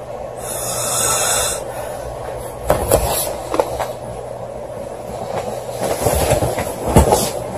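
A woman snoring: rough, rattling breath noise that swells about a second in and again near the end. Several sharp knocks or thumps come about three seconds in and again near the end.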